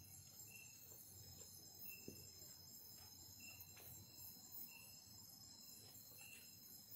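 Faint night chorus of crickets and other insects: a steady high-pitched trilling, with one short chirp repeating about every second and a half.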